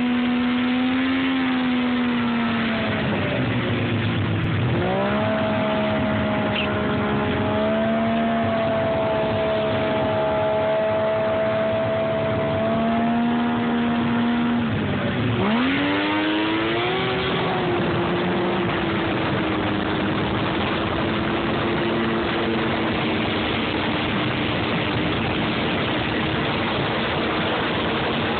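Snowmobile engine running hard at high, steady revs over a rush of noise. Twice, about four seconds in and again about fifteen seconds in, the revs drop sharply and climb back up as the throttle is let off and reapplied.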